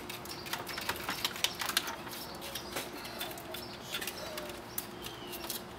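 Scattered light clicks, ticks and rustles of gloved hands handling wires, connectors and metal-shielded parts inside an opened CRT monitor, over a faint steady hum.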